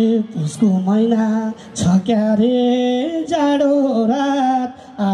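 A singer of Nepali lok dohori folk song, sung live into a microphone, holding long notes that slide and waver between short pauses between phrases.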